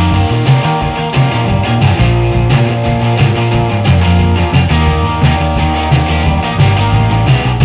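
Rock music with electric guitar, a strong bass line and a steady beat.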